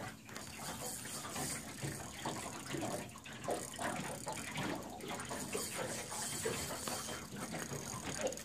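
Water sloshing and lapping against the side of a small boat, an irregular splashy wash.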